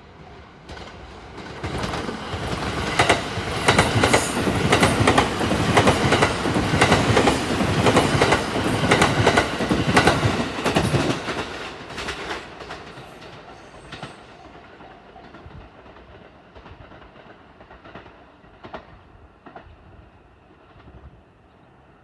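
Sunrise Seto sleeper train, a 285 series electric multiple unit, passing through a station without stopping. Its running noise builds over a couple of seconds, then the wheels clack rapidly over the rail joints for about ten seconds before the sound fades away as the train recedes.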